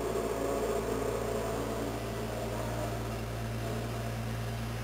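A steady low hum over an even background hiss, with no gunshot.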